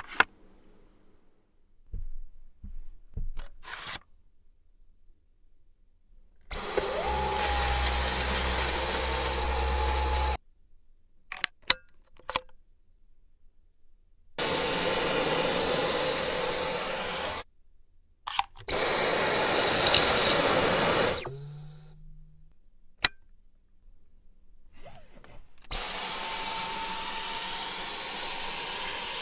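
Dyson vacuum cleaner switched on and off four times, running a few seconds each time with a steady rushing sound and a high motor whine that rises briefly as it spins up. Short clicks and knocks come between the runs.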